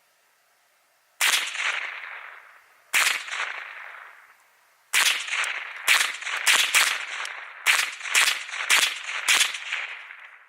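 Ruger 10/22 semi-automatic .22 LR rifle fired about ten times. The first two shots are about two seconds apart, and the rest come roughly every half second. Each shot has a fading echo.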